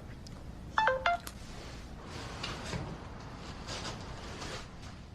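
Two quick electronic beeps from a phone, each a short pair of pitched tones, about a second in, followed by faint rustling.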